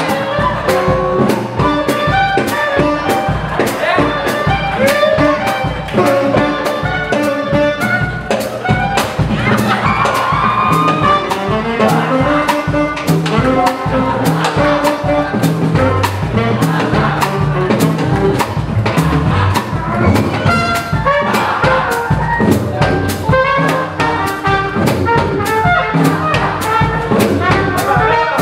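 Small swing jazz band playing live: clarinet, trumpet and saxophone over piano, double bass and drums, with a steady swing beat.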